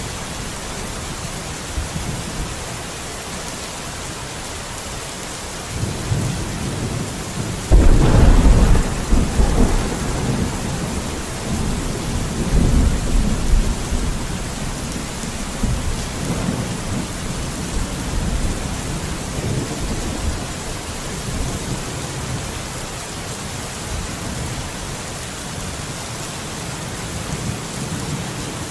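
Steady rain with rolling thunder. A low rumble builds, then a sudden loud thunderclap breaks and rolls on in waves for several seconds before sinking back under the rain.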